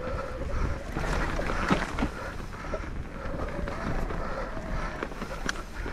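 E-mountain bike ridden down a slick dirt trail: wind buffeting the camera's microphone, tyres rolling and the bike knocking and rattling over bumps, with a faint steady whine from the electric motor.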